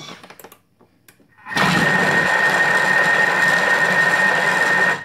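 Thermomix TM5 food processor chopping raw broccoli florets, red pepper, apple and nuts at speed 4. Its blade runs as a loud, steady whir with a high whine over it, starting about a second and a half in and stopping abruptly near the end.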